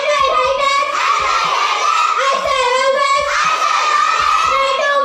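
A group of children chanting a pledge aloud together in unison, many young voices in a sing-song rhythm.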